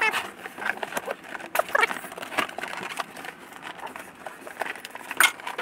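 Cardboard packaging being pulled and wrestled by hand: irregular scraping, rustling and knocking with a few short squeaks as the boxed RC car sticks in its box.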